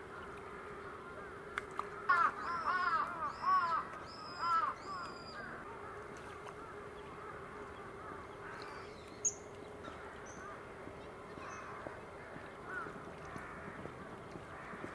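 A crow cawing about five times in quick succession, followed by fainter scattered bird calls and a short high chirp, over a steady low hum.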